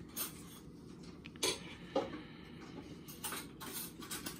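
Paper trading cards slid and shuffled through by hand, giving a handful of short clicks and rustles as card stock rubs and snaps against card stock.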